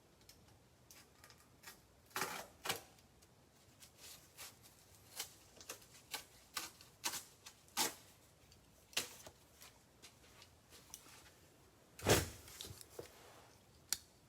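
Trading-card boxes and packs being handled on a table: irregular taps, clicks and light rustles, with one louder knock about twelve seconds in.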